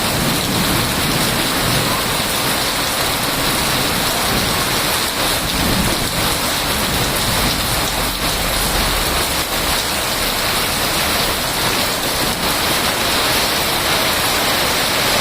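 Steady rain falling, a loud, even hiss.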